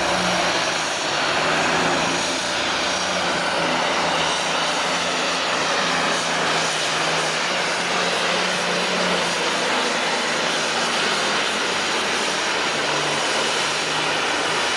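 Allis-Chalmers D-21 super stock pulling tractor's turbocharged diesel running flat out under full load as it drags the weight-transfer sled. It is a loud, steady drone whose note sags a little in the last few seconds.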